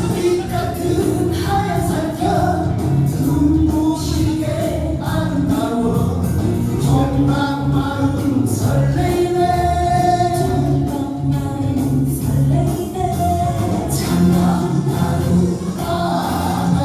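Music: a song sung over instrumental accompaniment with a steady beat.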